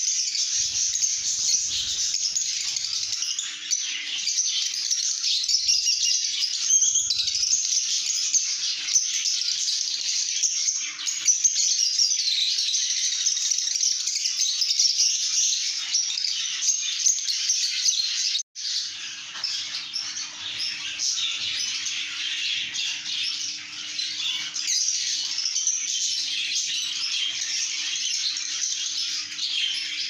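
A flock of lovebirds chirping and chattering constantly, many high, shrill calls overlapping, with a faint steady hum underneath.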